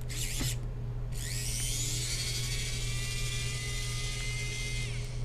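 A small high-speed motor whirring: a brief burst at the start, then a longer run from about a second in that rises in pitch as it spins up, holds steady and stops near the end.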